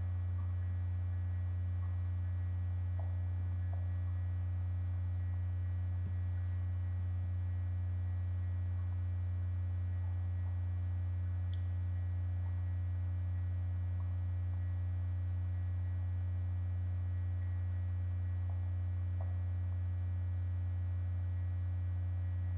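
Steady low electrical hum, with evenly spaced fainter overtones, running at an even level. It is mains hum picked up by the recording. A few faint small clicks sound now and then.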